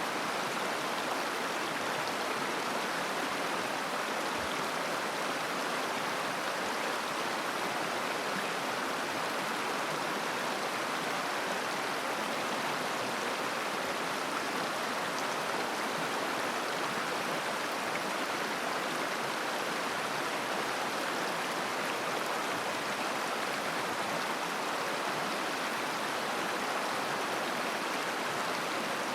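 River water babbling, a steady, even rush of flowing water.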